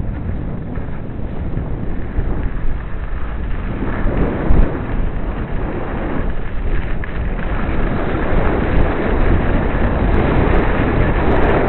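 Wind rushing over a skier's camera microphone, mixed with skis scraping over packed snow, growing louder through the run.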